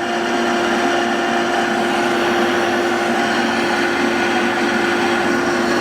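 Metal lathe running and a carbide-tipped tool turning a case-hardened steel shaft, taking a half-millimetre cut. It makes a steady drone with a constant tone over a rough hiss.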